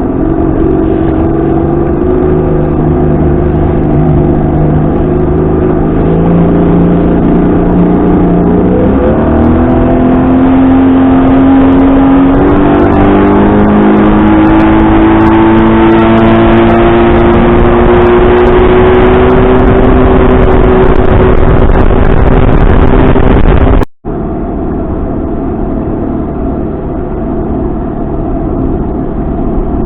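Outboard motor running the boat under way, its pitch stepping up about 9 and 12 seconds in as the throttle opens, then holding high and climbing slowly. It cuts off abruptly about 24 seconds in and gives way to a steadier, lower engine sound.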